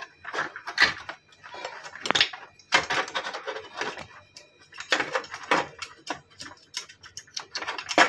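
Irregular plastic clicks, knocks and rattles as a washing-machine timer switch is worked loose and lifted out of its plastic control panel by hand.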